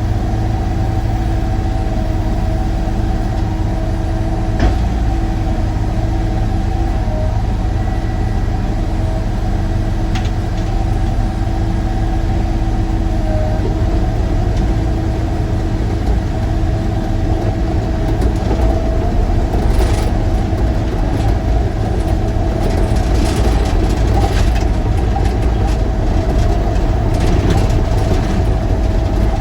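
Sany excavator's diesel engine running steadily, with a steady whine above the engine note. In the second half there is a run of sharp cracks and snaps.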